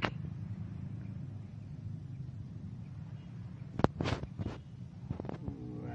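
A freshly landed fish hitting the grass bank and flapping: a few sharp slaps about four seconds in and a few more just after five, over a steady low rumble.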